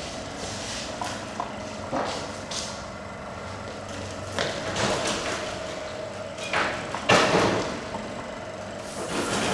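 A chain-hung bucket marking tool swinging and dragging over paper laid on wooden boards: irregular knocks and scrapes, the loudest cluster about seven seconds in.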